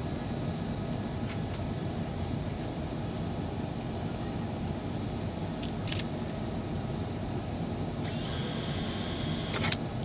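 Cordless drill with a 1/8-inch bit running for about a second and a half near the end, drilling through a thin aluminium panel, then stopping abruptly. Before it come a few light clicks over a steady low hum.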